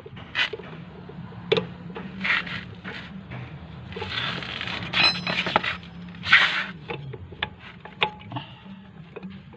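Hand tools and metal brake parts being worked on: scattered clicks and knocks, with a longer rasping scrape about four seconds in and another about six seconds in.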